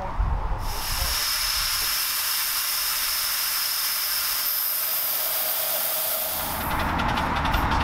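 Miniature steam locomotive blowing off steam in a loud, steady hiss. Near the end the hiss turns into a rapid flutter, with a low rumble underneath.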